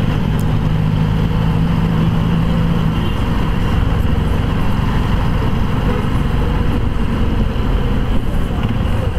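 Steady road-traffic and engine noise from vehicles on the move, with a low engine hum through the first three seconds.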